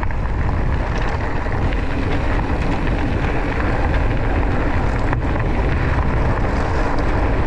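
Rumbling wind on the microphone of a mountain bike descending a gravel road at speed, with the tyres rolling over loose gravel. A single sharp tick about five seconds in.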